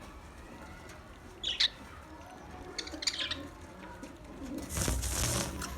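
Budgerigars chirping: one sharp chirp about one and a half seconds in, a quick cluster of chirps about three seconds in, then a louder, rushing burst of noise near the end.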